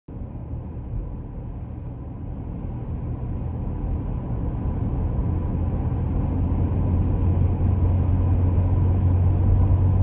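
Car driving on a highway, heard from inside the cabin: a steady low rumble of engine and tyre noise that grows gradually louder.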